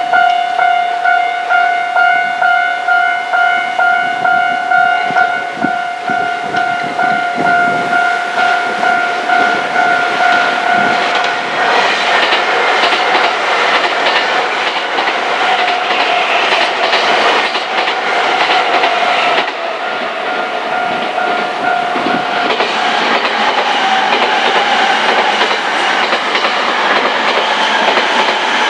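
Japanese level-crossing warning bell ringing steadily, about one and a half strokes a second. About twelve seconds in, a Nankai electric train passes through the crossing, its wheels clattering over the rail joints, while the bell goes on faintly beneath it.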